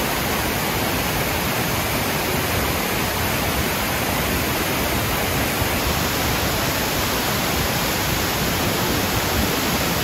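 A waterfall pouring: a steady, even rush of falling water.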